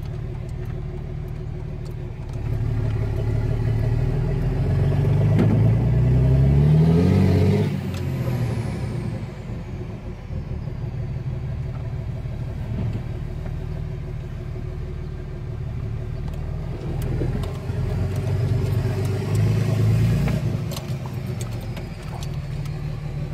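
Dodge Ram 2500's Cummins turbo-diesel inline-six, heard from inside the cab while driving. It pulls up in pitch a few seconds in and again near the end, dropping back each time, with a faint turbo whistle rising under load and falling away afterward.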